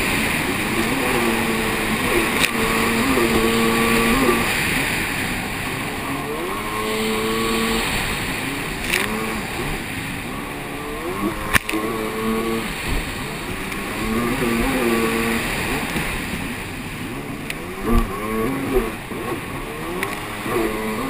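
Racing jet ski engine running hard under the water-spray and hull noise, its pitch dropping and climbing again several times as the throttle is eased and reopened through the buoy turns. A sharp crack sounds about halfway through, and a few thumps come near the end.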